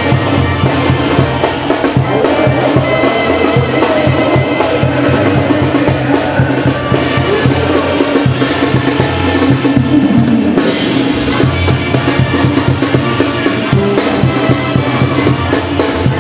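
Music with drums and a stepping bass line, playing steadily, the sound getting brighter about two-thirds of the way through.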